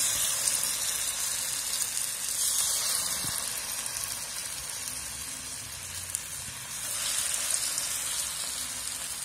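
Mung and urad dal pakoda batter deep-frying in preheated oil in a pan, a steady sizzle as the spoonfuls of batter bubble in the hot oil.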